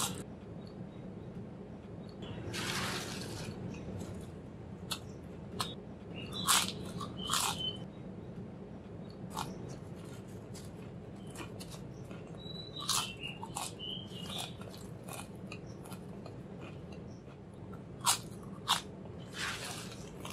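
Crisp potato chips crunching as they are bitten and chewed close to the microphone, in sharp separate cracks, with the dry rustle of the chip pile as a hand digs in for more.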